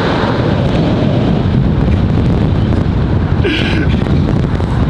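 Wind buffeting the microphone of a moving car, over low road and engine rumble. A brief, sharper higher sound comes about three and a half seconds in.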